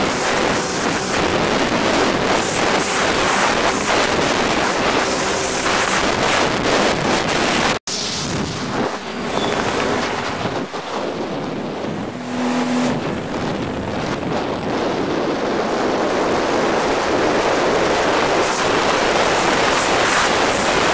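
Sea-Doo RXP personal watercraft with a Stage I tune running at full speed: a steady engine and jet-pump noise mixed with heavy wind buffeting the microphone and water spray. The sound cuts out for an instant about eight seconds in.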